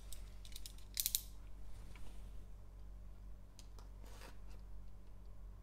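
Gloved hands handling a shrink-wrapped cardboard trading-card box. A quick cluster of sharp plastic crackles and taps comes about a second in, and softer rustles follow around three and a half to four seconds.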